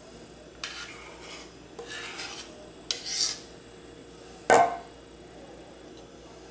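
Metal palette knife scraping and spreading royal icing in three short rasping strokes, followed by a sharp metal clack about four and a half seconds in, the loudest sound.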